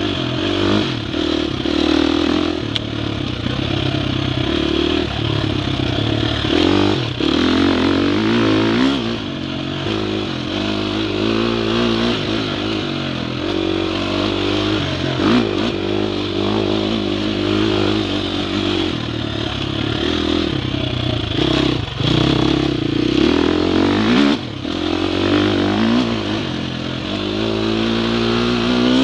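Dirt bike engine revving up and falling off again and again while riding a rough trail, with scattered knocks and clatter from the bike over the bumps.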